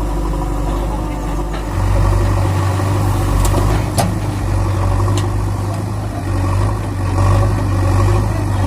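Tractor engine running with a steady low hum that grows louder about two seconds in, with a few sharp clicks in the middle.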